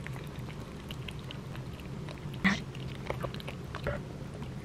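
A pet cat eating from a bowl, with its face pushed into it: scattered small crunching clicks of chewing, and one louder knock about two and a half seconds in.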